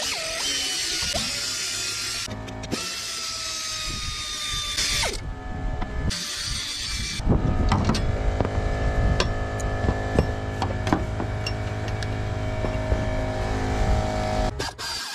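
Pneumatic 3/8-inch air ratchet running in bursts as it spins out bolts, its motor whining with stops in between. Background music plays along.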